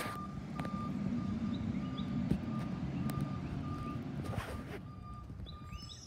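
Garbage truck's reversing alarm beeping steadily, about two beeps a second, over the low rumble of its diesel engine, which fades near the end.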